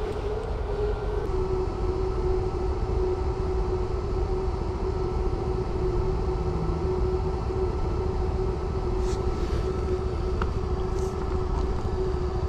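A small engine running steadily at one constant pitch, with a low rumble of wind on the microphone.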